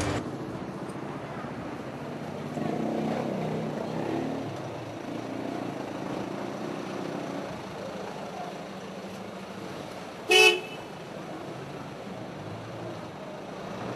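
Busy outdoor street ambience with faint voices, and a single short vehicle horn toot about ten seconds in, the loudest sound.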